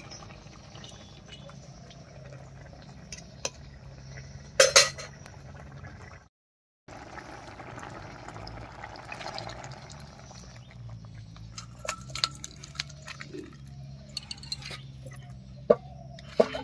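Pumpkin-leaf curry with potatoes and jackfruit seeds bubbling as it simmers in a pot, with a few sharp clinks of a utensil against the pot.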